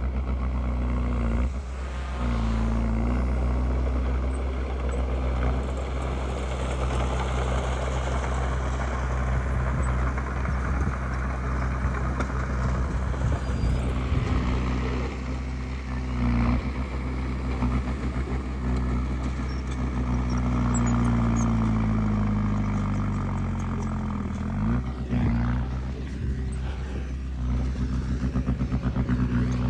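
Heavy earthmoving machine's diesel engine running steadily under load. Its pitch slides down a little after twenty seconds in, then swings quickly back up.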